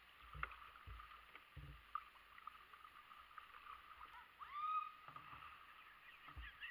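Kayak paddling on a shallow creek: a few soft knocks of the paddle against the plastic hull and light water sounds. A short, high, rising-and-falling call comes from somewhere off about four and a half seconds in.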